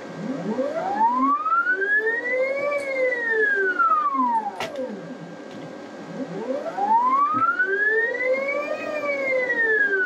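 CNC stepper motor driving the X-axis lead screw, its whine rising slowly in pitch as the carriage speeds up and then falling as it slows down. This happens twice, one traverse each way, with the second still slowing at the end. The acceleration is set very low, so each ramp up and down takes about two seconds.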